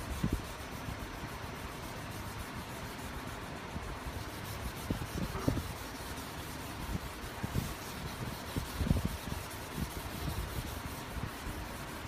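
Hand sanding block rubbing back and forth over a car body panel being wet-sanded with water, a steady rubbing with a few soft bumps from the strokes.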